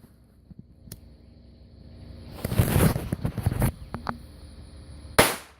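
Black Cat firecrackers going off: a rapid string of sharp pops for just over a second around the middle, then a single sharp bang near the end.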